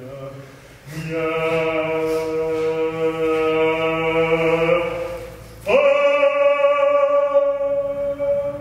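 A male singer holding long, wordless notes in a chant-like style: one low note held for about four seconds, then a second, higher note that slides up into place and is held steady to the end.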